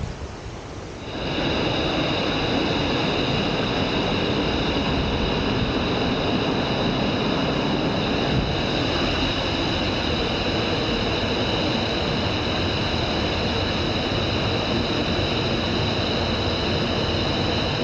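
Steady roar of a waterfall, starting abruptly about a second in and holding even throughout.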